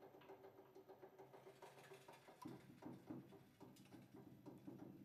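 Near silence, with only a faint low pulsing hum that turns denser about halfway through.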